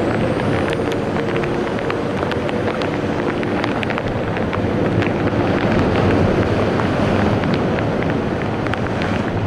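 Heavy surf breaking against a rock ledge, with wind buffeting the microphone and scattered sharp ticks. A faint steady hum sits under it for roughly the first half.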